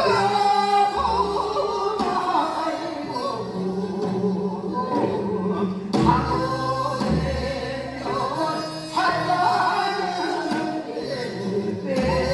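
Korean folk song (minyo) sung as a duet by a woman and a man, with long wavering, heavily ornamented vocal phrases over instrumental accompaniment with sustained low notes.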